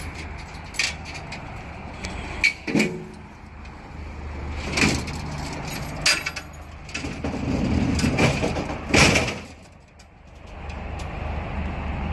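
Sharp knocks and clanks of a small metal clothes dryer being handled and moved, about half a dozen hits spread through, the loudest about nine seconds in, over a steady low hum.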